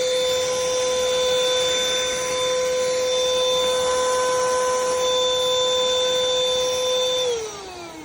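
Cordless handheld vacuum running with a steady high whine over a rush of airflow, then switched off about seven seconds in, its motor falling in pitch as it spins down.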